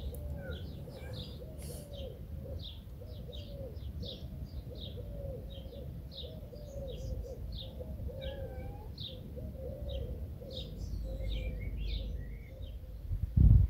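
Birds chirping outdoors: short high chirps repeat throughout over a lower call that comes back about every half second, with a low rumble underneath. A loud low thump comes near the end.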